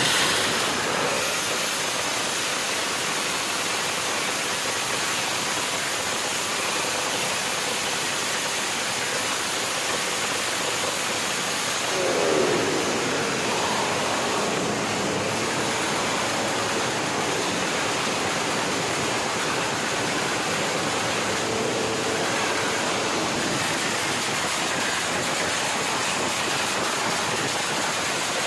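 Race-tuned underbone motorcycle with an open exhaust running very loud on a stand, heard as a steady rushing noise with no clear engine beat, with a brief swell about twelve seconds in.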